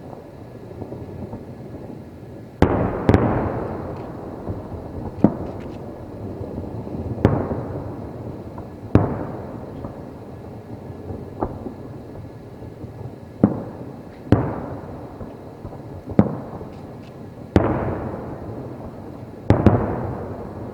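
Aerial firework shells bursting, about a dozen sharp booms one to two seconds apart, each trailing off in a rolling echo, over a continuous low rumble of further bursts.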